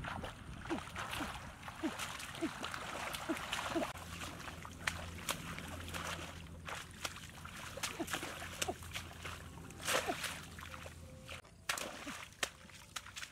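Hands splashing and sloshing through shallow muddy water and wet grass while groping for frogs, a steady wash of water noise broken by many sharp splats.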